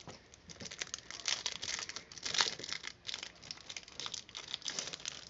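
Plastic wrapper of a 1988 Topps baseball card rack pack crinkling irregularly as it is pulled open by hand.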